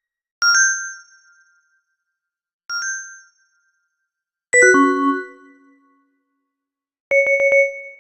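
Samsung SGH-T369 phone alert tones played one after another: a short two-note chime, a quieter repeat of it, a falling run of several bell-like notes, then a few quick repeated beeps near the end.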